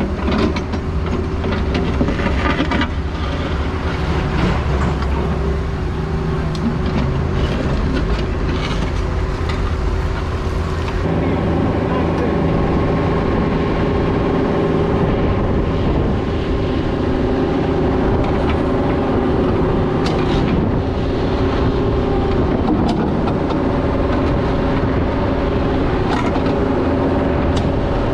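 Diesel engine of a heavy construction machine running steadily, its note changing about eleven seconds in as the machine works.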